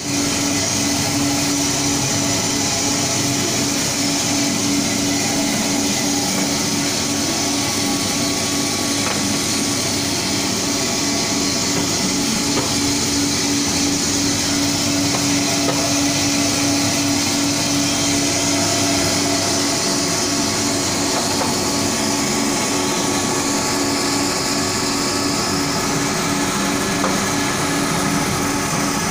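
Small drum coffee roaster running: a steady motor and fan hum with a hiss, while freshly roasted coffee beans are stirred and churned by the agitator arms in the cooling tray.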